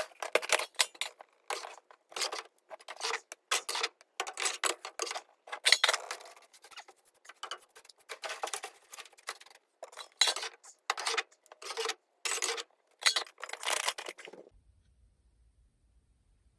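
Welded steel fireplace grate clanking and clinking as it is handled and set into a fireplace: many irregular sharp metal knocks and rattles that stop abruptly about fourteen seconds in.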